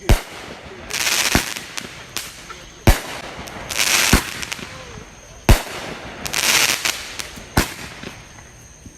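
Consumer fireworks going off: about six sharp bangs, roughly one every second and a half, with bursts of crackling between them.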